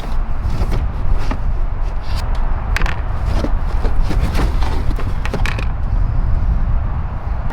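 Things being handled and moved about in a car's trunk: a string of irregular knocks, clunks and creaks over a steady low rumble.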